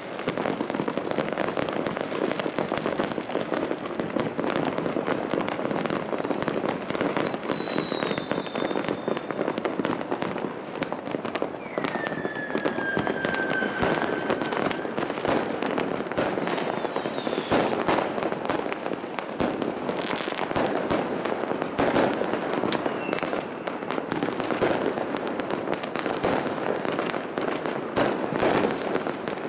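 Many fireworks and firecrackers going off at once: a dense, continuous crackle of bangs. Two long whistles falling in pitch cut through it, a higher one about six seconds in and a lower one about twelve seconds in.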